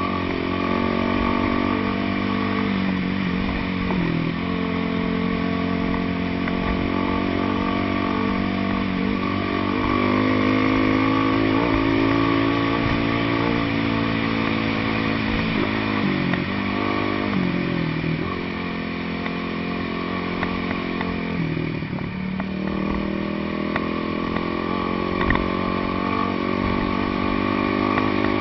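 Off-road dirt bike engine running under way at a fairly steady speed, its pitch dipping and climbing back a few times as the rider eases off and gets back on the throttle.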